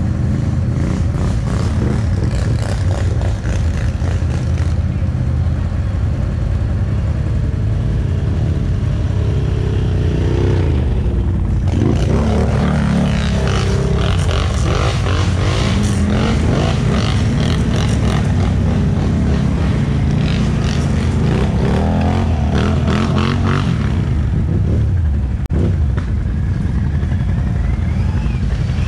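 ATV engine running hard under way, its pitch rising and falling as the throttle is worked. From about twelve seconds in, a dense rattle runs over it.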